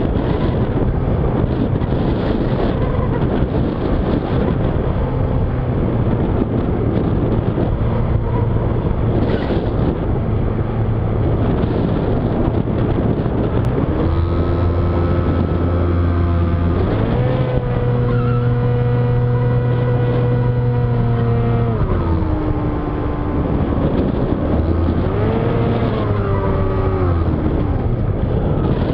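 Air rushing over the onboard camera of a Skywalker FPV model plane flying low. About halfway in, its electric motor and propeller whine in throttle bursts: the pitch steps up, holds for a few seconds, drops, then rises and falls again near the end.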